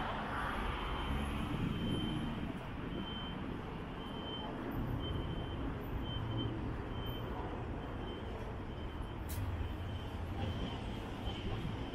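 City street traffic: a large vehicle's engine runs with a steady low hum. A short high electronic beep repeats about every two-thirds of a second throughout. A single sharp click comes about nine seconds in.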